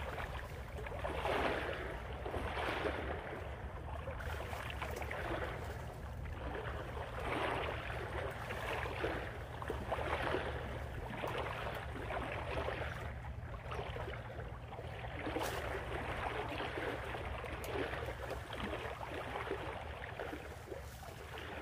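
Leafy tree branches rustling in gusts that swell and fade every second or two, over a steady low wind rumble.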